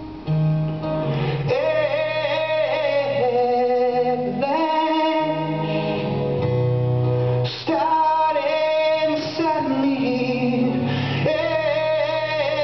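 A man singing live to his own acoustic guitar. The guitar is heard first, and the voice comes in about a second and a half in and carries through.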